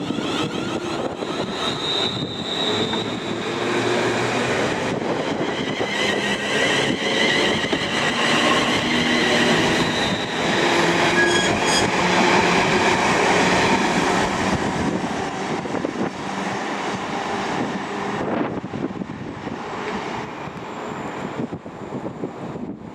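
Passenger train running on the rails, heard from on board, with a high wavering squeal over the rolling noise. It is loudest midway and eases off near the end.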